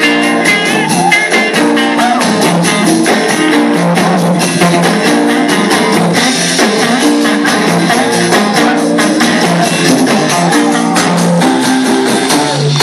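Live band playing an up-tempo Motown song with guitar, bass line and drum kit keeping a steady beat, mostly instrumental with little singing.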